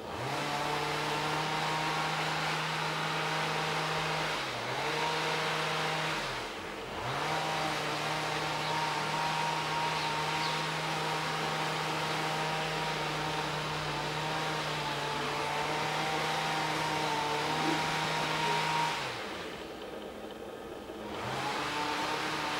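A motor-driven machine running with a steady hum. It speeds up at the start, dips briefly twice, then cuts out and starts up again near the end.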